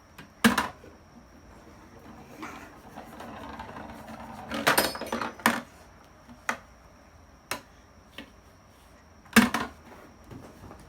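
Kumon Kuru Kuru Chime ball-drop toy being played: plastic balls clack and clink as they drop in and roll down its spiral ramps. A soft rolling rattle leads into a loud cluster of knocks about five seconds in, and another sharp knock comes near the end.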